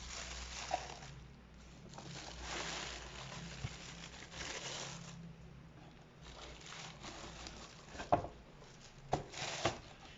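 Shoebox wrapping being rustled and crinkled in several waves of a second or two each as the shoes are unboxed, followed by three sharp knocks or clicks in the last couple of seconds.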